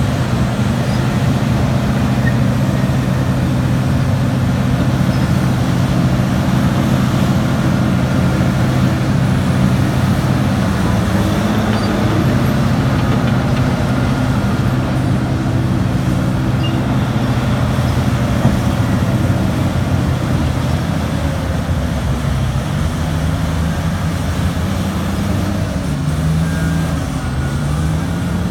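Heavy diesel engine drone of a Terex RH170 hydraulic mining shovel at work, a steady deep hum. The engine pitch shifts around the middle and rises in short glides near the end.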